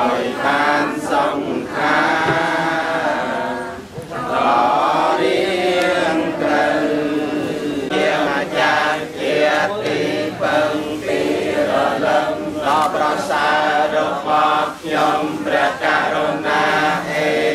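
A group of Buddhist monks and lay pilgrims chanting together in unison, a steady many-voiced recitation with a brief breath pause about four seconds in.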